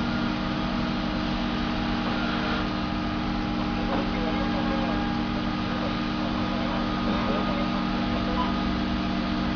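Hydraulic lift pump motor of a Cat 6,000 lb electric forklift running with a steady hum while the mast is raised high under a load.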